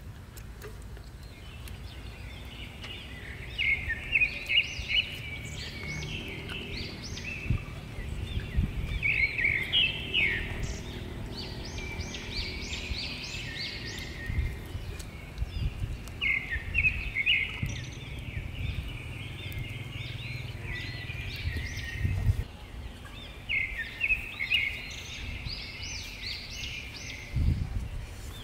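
Songbirds singing in bursts of quick, high chirps that come back every few seconds, over a steady low rumble. A dull thump sounds near the end.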